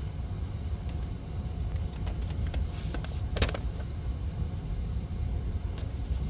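Steady low rumble, with a short rustle of a sheet of paper being handled about three and a half seconds in.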